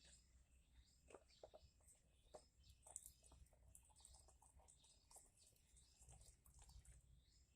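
Near silence, with faint bird chirps in the background and a few light clicks.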